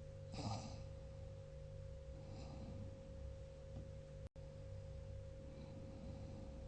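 A sleeper's breathing: a short, sharp intake of air about half a second in, then fainter breaths, over a steady low hum. The sound cuts out for an instant a little past four seconds in.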